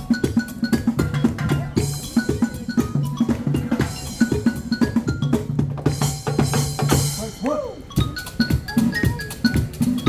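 Live percussion music from a drum group playing instruments built from used materials: fast, busy drumming over a held bass line, with short pitched melodic notes and a cymbal-like wash about two thirds of the way through.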